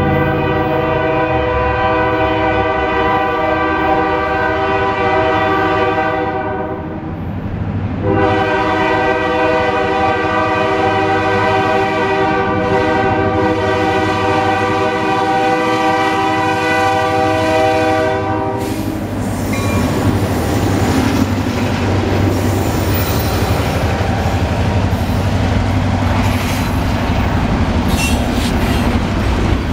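Diesel freight locomotive horn sounding two blasts, a shorter one and then a long one of about ten seconds. The train then arrives and passes close by: loud rumbling and clatter of wheels as the tank cars roll past.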